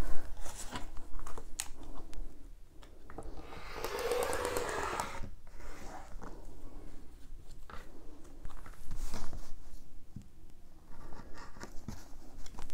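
Rotary cutter slicing through fabric along an acrylic quilting ruler on a cutting mat, with small knocks and rustles as the ruler and fabric are handled. One longer continuous cutting stretch comes a few seconds in.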